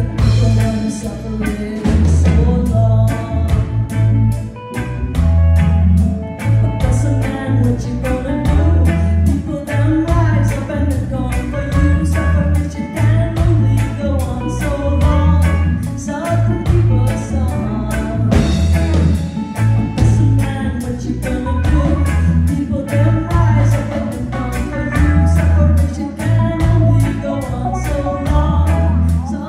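Live reggae band: a woman singing lead into a microphone over electric guitar, a bass line that repeats strongly in the low end, and a steady drum beat.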